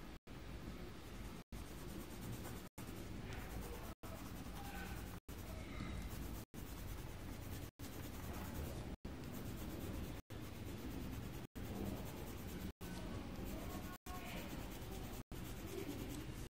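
Faint scratching of coloured pencil on paper. The sound cuts out completely for an instant about every second and a quarter, in a regular rhythm.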